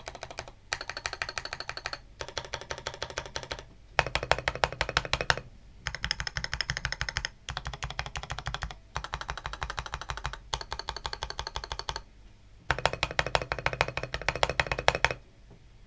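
Fast typing on a mechanical keyboard with lubed Outemu Red linear switches and PBT keycaps, foam under the PCB. It comes in bursts of a second or two with short pauses and stops near the end.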